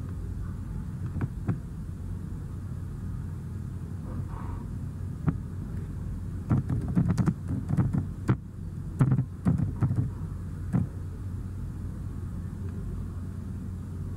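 Computer keyboard typing: a quick run of key clicks in the middle, with a few single mouse or key clicks earlier, over a steady low hum.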